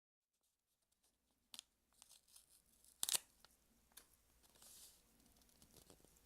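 Close-miked tearing and crinkling with a few sharp clicks, the loudest about three seconds in, followed by a short rustle.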